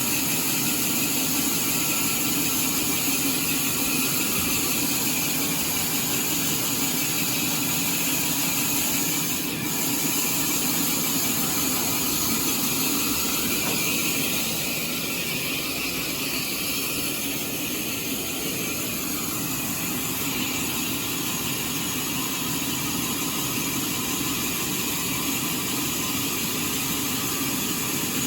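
Sawmill saw and machinery running steadily, an even mechanical noise with a high ringing edge that holds without a break.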